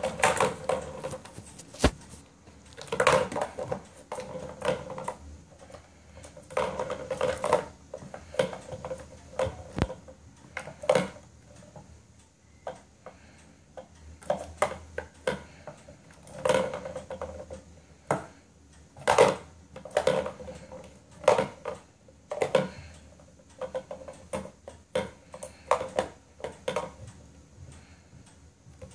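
Kittens batting the balls round a plastic ball-track cat toy: the balls rattle and clatter around the plastic track in irregular bursts, with sharp clicks of paws striking the plastic.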